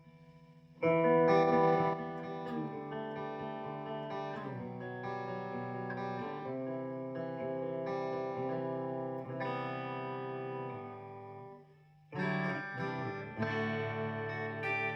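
Electric guitar with a single bridge humbucker played through the clean channel of a Marshall Valve State VS100 hybrid amp with a little reverb, heard through a phone's microphone. Ringing chords start about a second in, stop briefly near the end, then the playing resumes.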